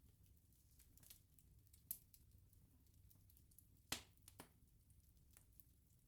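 Wood bonfire crackling quietly: a handful of sharp, separate pops and snaps, the loudest about four seconds in, over a faint low rumble of the burning.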